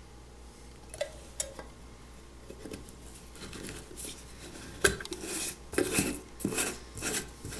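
Metal screw lid being twisted onto a glass mason jar: repeated scraping and clicking of the metal lid against the glass rim and threads, with one sharp click about five seconds in the loudest. A couple of light clinks come about a second in.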